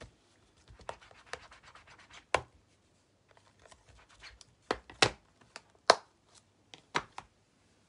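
Clear plastic stamp case being handled: light scratching and rustling of stiff plastic, with a few sharp clicks and taps, the loudest about five and six seconds in.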